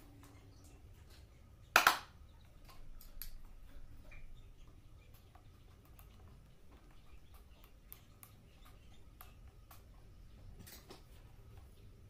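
Hand tool work on a plastic-housed electric hand planer: scattered light clicks and scrapes as a screwdriver turns screws into the housing, with one sharp loud knock about two seconds in and a softer knock near the end.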